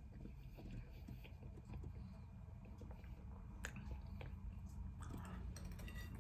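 Faint chewing of a mouthful of sausages and baked beans, with scattered light clicks of a knife and fork, one sharper about three and a half seconds in and several close together near the end.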